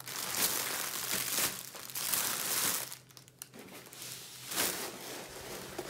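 Clear plastic bags crinkling as they are handled, a dense rustle for about three seconds, then quieter, with one short rustle near the end.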